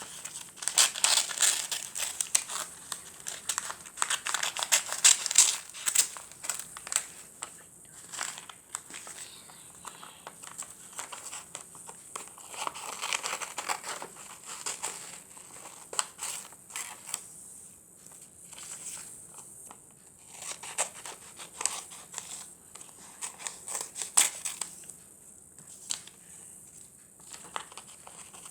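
Paper being handled at close range: irregular bursts of crinkling and rustling with sharp clicks, busiest in the first few seconds.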